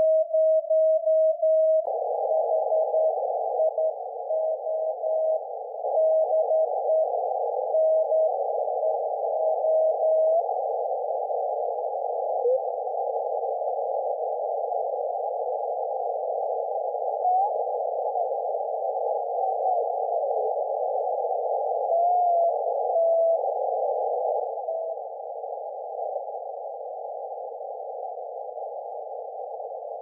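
Morse code (CW) received on a Kenwood TS-890S HF transceiver: an on-off keyed tone of about 640 Hz over band hiss. About two seconds in the hiss suddenly widens as the receive filter opens from 100 Hz to 400 Hz; the keying goes on until about ten seconds in, after which mostly band noise remains with a few brief weaker signals, and the hiss drops a little near the end.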